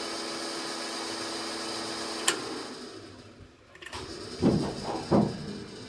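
Steady hum of an EMD GP10 locomotive's fuel priming pump, ending in a sharp click a little over two seconds in. After a short lull, the locomotive's diesel engine is cranked, giving loud low chuffs a little under a second apart.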